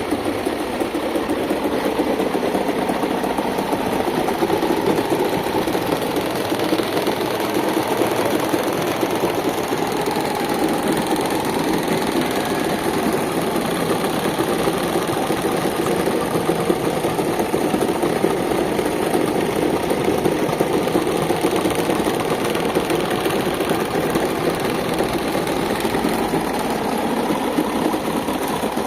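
Electric fan with a broken blade running steadily, a continuous mechanical whirr.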